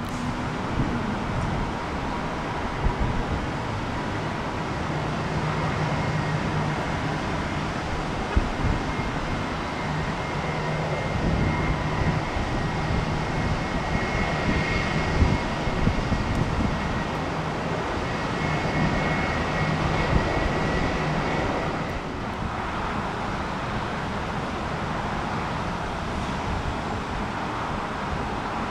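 Jet airliner engines running, a steady rushing noise with a faint high whine that fades out about two-thirds of the way through.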